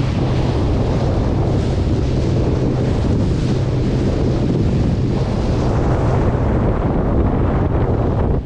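Jeanneau Leader 6.5 motorboat underway: a steady engine drone under wind buffeting the microphone and the rush of water along the hull.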